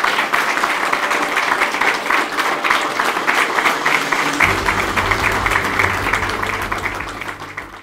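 Audience applauding, a dense, even patter of clapping. About four and a half seconds in, background music with a steady low bass comes in under it, and both fade out at the end.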